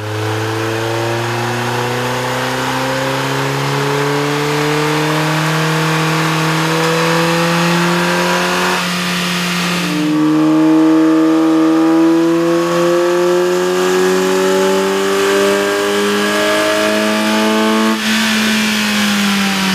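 Ford Focus 2.0-litre four-cylinder engine revving up under load on a chassis dyno, twice. The first run is with the stock intake; the second, starting about ten seconds in, is with a K&N cold air intake fitted. The pitch rises steadily through each run.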